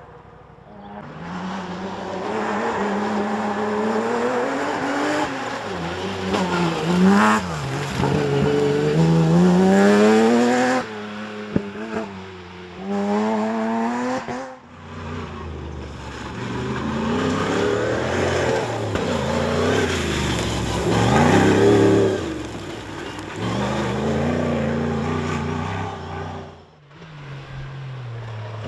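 Off-road 4x4 race cars' engines revving hard as they drive past, in several passes cut together. The pitch rises and falls with each change of revs, and the sound breaks off abruptly a few times between passes.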